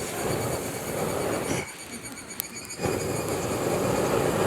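Two long bursts of rushing air, each about a second and a half, with a single sharp click between them.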